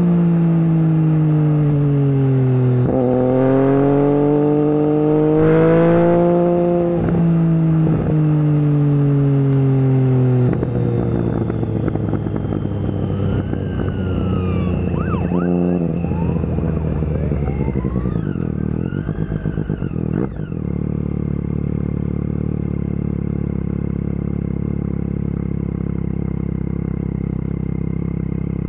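Motorcycle engine heard from the rider's seat, its pitch rising and falling with the throttle and breaking at several gear changes. About ten seconds in it drops to a lower steady note as the bike slows and idles. Faint high gliding tones come and go midway.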